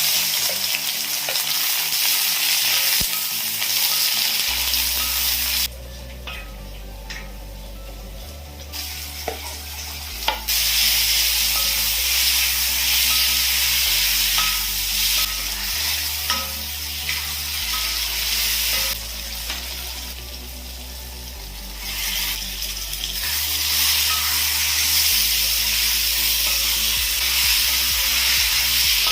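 Food sizzling in hot oil in a pan, with occasional light clicks of a utensil. The sizzle is loud most of the time but eases off twice for a few seconds.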